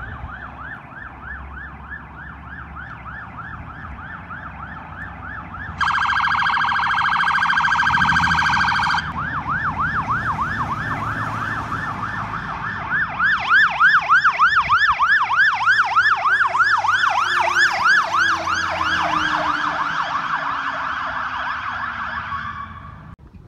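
Emergency vehicle sirens in a fast repeating yelp as a state patrol car and fire trucks pass close by, with a second siren joining about halfway through. A loud steady horn blast sounds for about three seconds starting around six seconds in.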